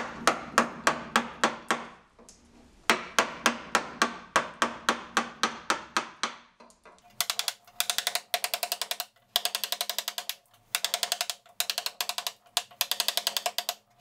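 Carving gouge working a wood block: two runs of sharp, evenly spaced taps, about four a second, driving the gouge into the wood. From about halfway, several short runs of rapid fine ticking as the gouge pares across the grain.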